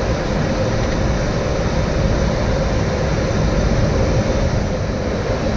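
Airliner cockpit noise on approach to landing: a steady rush of air and engine hum with a continuous mid-pitched tone running through it.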